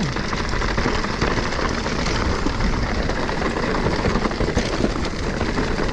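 Mountain bike descending loose, dusty singletrack: a steady rush of tyre and trail noise over dirt and roots, with constant small clicks and rattles from the bike.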